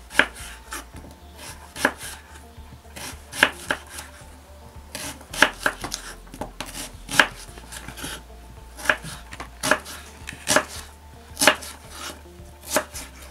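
Kitchen knife slicing a peeled onion on a wooden cutting board: sharp, irregular knife strokes hitting the board, some in quick runs of several cuts.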